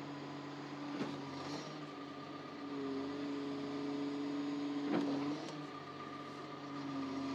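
Caterpillar 420F2 backhoe loader's diesel engine running while its hydraulics are worked: the engine note strengthens under load about three seconds in, eases a couple of seconds later and strengthens again near the end. Two sharp clicks, about one and five seconds in.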